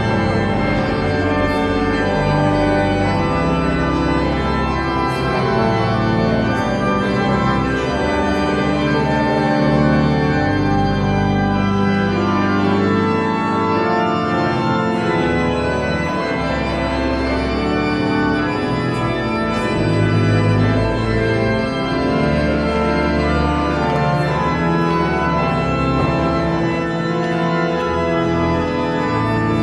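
Organ music: slow, sustained chords that change every second or two.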